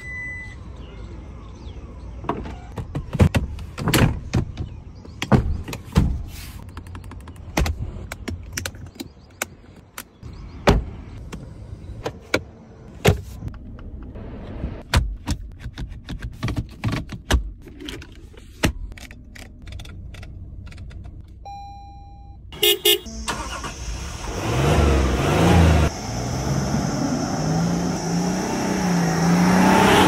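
Toyota Land Cruiser's controls being worked: about twenty seconds of separate clicks and knocks from the tailgate, switches and gear selector, then a short electronic chime. A little over twenty seconds in, the engine starts with a brief rattle and runs, louder and louder as the SUV pulls away.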